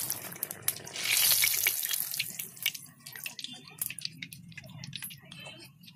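Pakan pitha sizzling as it deep-fries in hot oil in a wok, loudest in the first two seconds. The sizzle then dies down, and scattered clicks of a wire skimmer against metal follow as the cake is lifted out.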